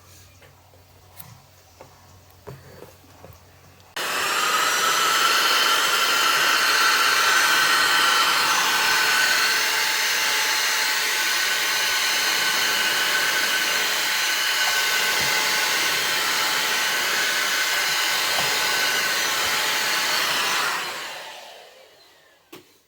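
Dishwasher pump motor switched on and running with a steady whir, then winding down near the end.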